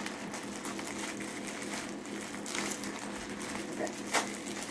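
Handling noise from a small object being worked by hand, with two sharp clicks, about two and a half and four seconds in, over a steady low hum.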